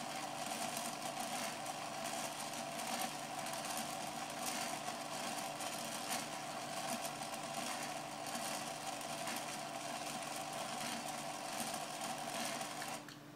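Aircraft rotating beacon's electric motor and drive running with a steady whirring hum, powered from 12 volts though rated for 28. The sound cuts off abruptly near the end.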